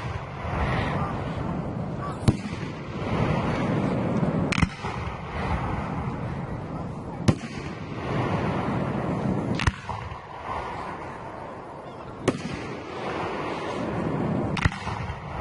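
Aerial fireworks display: six sharp bangs about two and a half seconds apart, over a steady background of noise.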